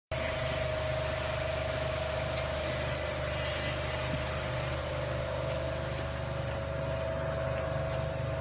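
Biscuit-forming machine with engraved moulding rollers running: a steady motor hum with a constant mid-pitched whine.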